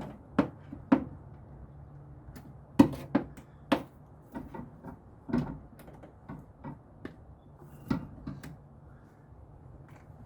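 Hand tools and loose metal parts clinking and knocking as work goes on at an engine: a dozen or so sharp, irregular taps, thinning out after about eight seconds, over a faint low hum.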